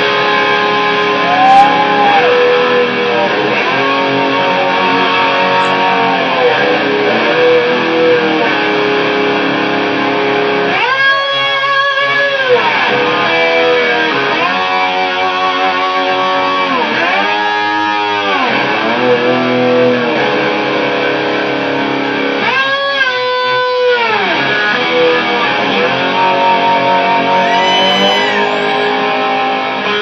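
Electric guitar laid flat on the lap and played with a slide: long notes that swoop up and down in pitch, several steep rising-and-falling glides about a third of the way in and again around two-thirds through, in imitation of a revving motor scooter.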